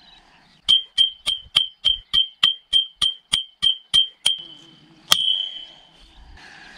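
A Mora Companion HD stainless steel knife chopping a rusty iron pole: a quick, even run of about a dozen sharp metallic strikes, roughly three a second, each ringing briefly. After a short pause comes one harder strike that rings out longer.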